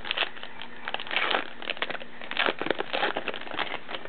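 Trading card pack wrapper torn open by hand and crinkled as the stack of cards is pulled out: a run of irregular crackling, crinkling bursts.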